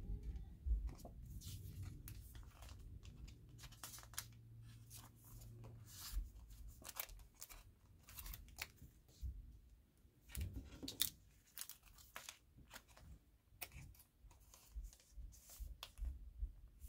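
Opaque grey wrapper around a photo print being torn open and crinkled, with scattered short crackles. A loud crackle comes about eleven seconds in, and the glossy print rustles as it slides out.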